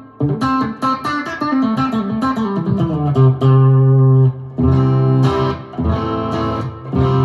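Mulecaster, a Mule resophonic Telecaster-style electric guitar, played clean on its bridge pickup through an amp modeller and full-range speaker. Quick picked notes step down in pitch over the first few seconds, then several chords are struck and left to ring.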